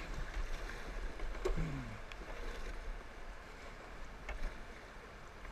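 Fast creek water rushing around a kayak running a shallow riffle. There is a sharp knock about one and a half seconds in, followed by a brief falling tone, and another lighter knock later.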